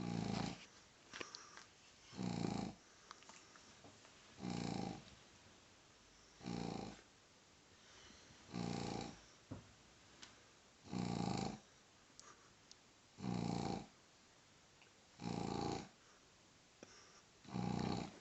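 A pug snoring in its sleep: a short snore about every two seconds, nine in all, with soft breathing pauses between.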